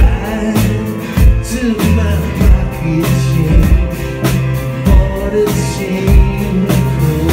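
Live band music: a man singing over a strummed acoustic guitar, with a steady drum beat and low bass notes.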